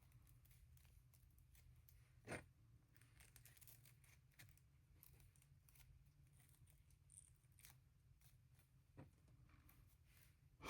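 Near silence, with one soft tap a little over two seconds in and a few tiny ticks after it: small parts being handled and worked into a porcelain doll leg.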